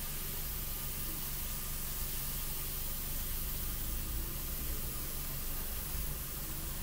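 An airbrush spraying paint in a steady hiss, over a steady low hum.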